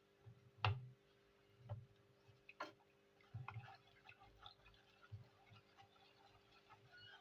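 Wooden spoon stirring a pot of simmering syrup, knocking against the pot: three sharp taps about a second apart, then lighter clicking and scraping.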